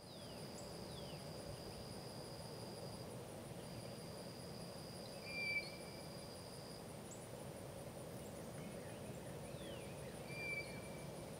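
Outdoor countryside ambience: a steady, high-pitched insect drone that breaks off briefly about three seconds in. A few short bird chirps come about five and a half and ten and a half seconds in, over a faint low background rumble.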